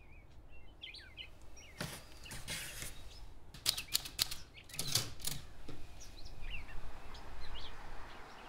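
Manual Corona typewriter keys striking in quick clusters between about two and five and a half seconds in. Small birds chirp before and after the typing.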